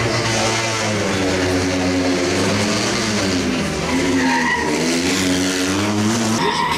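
Fiat 126p rally car's air-cooled two-cylinder engine revving hard, its pitch climbing and dropping several times through gear changes, with a brief tyre squeal about four seconds in.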